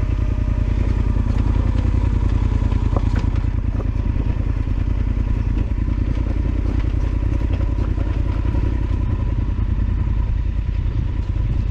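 Yamaha Super Ténéré XT1200Z's parallel-twin engine running steadily while the motorcycle is under way, with a few light knocks and clatter.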